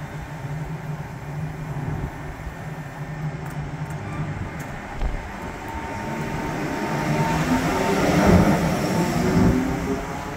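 A railway locomotive moving past close by: a steady low hum that grows louder to a peak about eight seconds in, with a few steady tones above it, then eases off.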